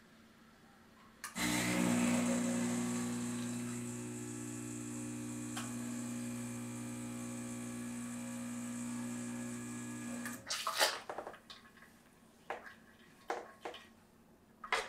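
Rocket Giotto espresso machine's pump running with a steady low tone and a hiss of flowing water while a shot pours, starting about a second in and stopping about nine seconds later with a short hiss. A few light clicks and knocks follow.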